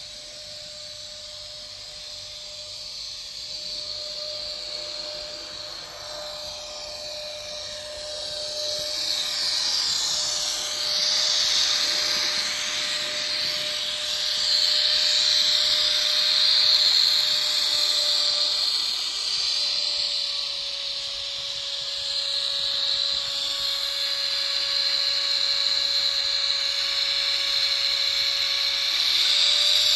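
N-scale model Krokodil electric locomotive running with its train: the small electric motor's steady high whine over a hiss of wheels on the rails, getting louder about ten seconds in as it comes close.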